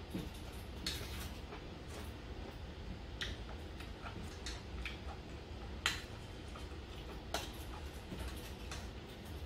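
A metal spoon clinking against a metal bowl as food is scooped and eaten: a string of sharp, irregular clicks, the loudest about six seconds in.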